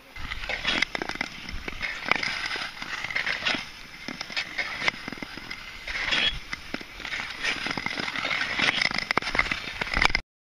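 Long-distance (Nordic) skate blades gliding and scraping across clear lake ice: a continuous scraping hiss peppered with many sharp ticks and crackles, cutting off abruptly near the end.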